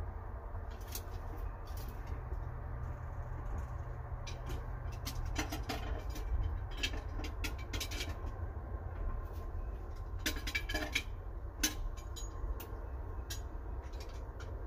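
Feller buncher's diesel engine idling, a steady low rumble, heard from the cab with the door open, with scattered light clicks and ticks over it.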